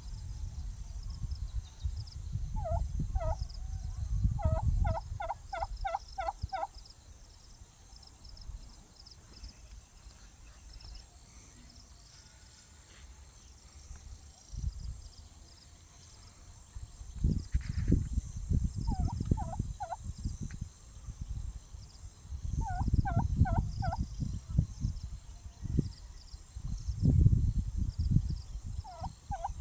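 Domestic turkey gobbling in several quick bursts of rapid notes; the longest run comes early, with shorter ones in the second half. A steady, high-pitched pulsing buzz runs underneath, and loud low rumbles come and go.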